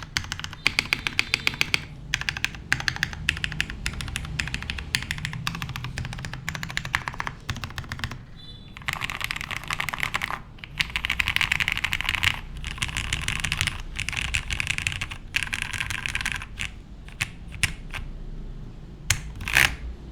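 Fast typing on a plateless, PCB-mounted Jer 1813 mechanical keyboard with lubed Cherry "new" Nixie switches and GMK keycaps: a rapid clatter of keystrokes with a brief pause about eight seconds in. The strokes thin out near the end, with a couple of louder strokes just before the typing stops.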